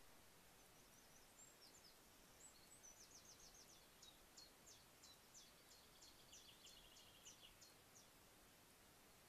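Faint songbird song over a steady hiss: a run of short, high, sharp notes, several a second, starting about a second in, with a quicker, lower trill under them near the end.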